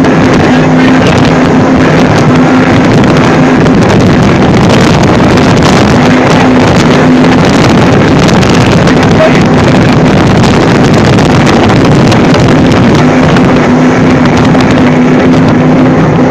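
Speedboat engine running steadily at speed, with a dense rush of wind and water noise on the microphone.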